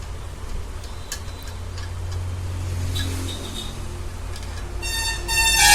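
A few light metallic clicks of hand tools working on the motorcycle engine over a steady low traffic hum, then a vehicle horn sounding loudly near the end.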